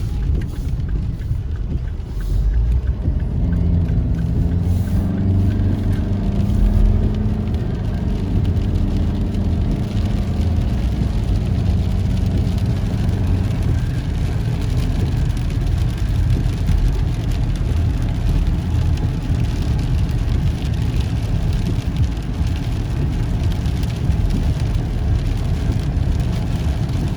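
A vehicle driving in heavy rain: a steady low engine and road rumble under the hiss of rain, with the engine note rising for a few seconds early in the drive.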